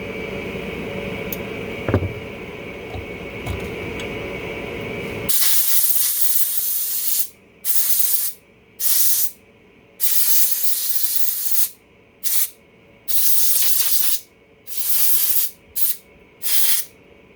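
Compressed-air blow gun blasting dirt off a small-engine carburetor before its cleaning bath. After a few seconds of steady background hum with a few light clicks, about nine sharp hissing blasts of varying length start and stop abruptly.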